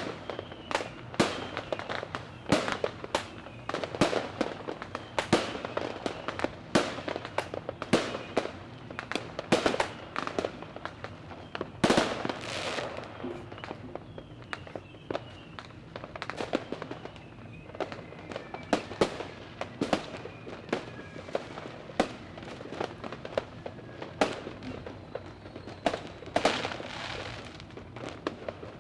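Fireworks going off: a stream of sharp bangs and cracks at irregular intervals, several a second at times, with a few louder, longer bursts.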